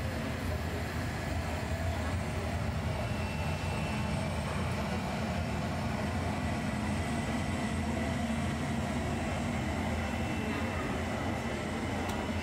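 A steady low rumble with a faint hiss above it, heard as a model airliner makes its takeoff run at a model airport, in keeping with the jet-engine roar played for the exhibit's takeoffs.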